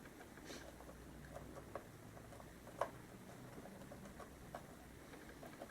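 Faint scattered clicks and light scraping of a laptop-style RAM stick being worked into a late-2012 Mac Mini's memory slot, with one sharper click about halfway through.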